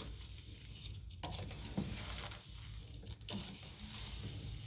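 Spoon stirring rice through fried onions and masala in a cooking pot, with a light sizzle and a few scrapes against the pot.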